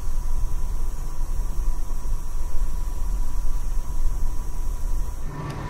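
Steady low rumble inside a moving Amtrak Auto Train passenger car, with a thin steady tone above it. The sound changes abruptly and drops a little about five seconds in.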